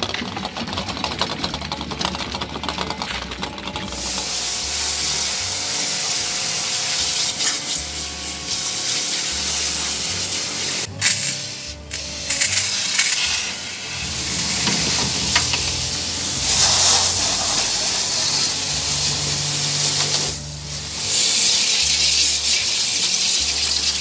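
A pressure washer sprays water onto an old refrigerator: a loud, steady hiss of spray starts a few seconds in and cuts out briefly twice, when the trigger is let go.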